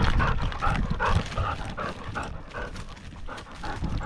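A dog panting close to the microphone in a steady rhythm of about three to four breaths a second. Low rumble and knocks from the harness-mounted camera jostling are loudest in the first second.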